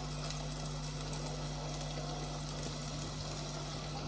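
Steady low hiss of milk and ghee heating in a steel pot on a gas burner, coming up to the boil, with a low steady hum underneath.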